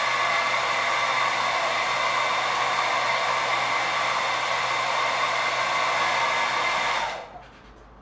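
Steady rushing noise with a faint low hum from the electric appliance serving as the high-current load through the connector under test, cutting off about seven seconds in as the load is switched off.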